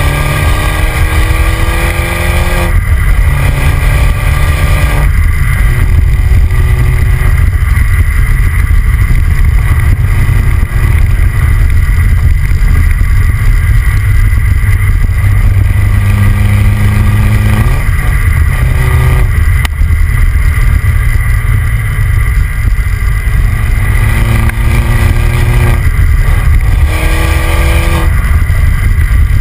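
2009 MINI John Cooper Works Convertible on the move, heard from its rear bumper: heavy wind and road rumble under the exhaust note of its turbocharged four-cylinder. Several times the engine pitch climbs as it accelerates through the gears, with short breaks at the shifts.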